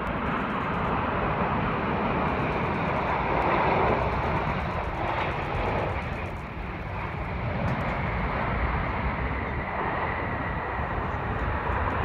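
Steady rushing jet-engine noise of a Boeing 747-8 freighter's GEnx engines as it lands, with a faint steady whine coming in over the last few seconds.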